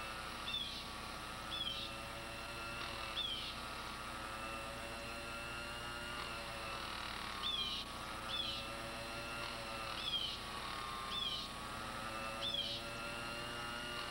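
Small watchmaker's lathe running at moderate speed with a steady, wavering whine, while a drill in the tailstock is pecked in and out of the end of a clock arbor. Short high squeaks that fall in pitch come about once a second, in two runs with a pause between, as the drill cuts.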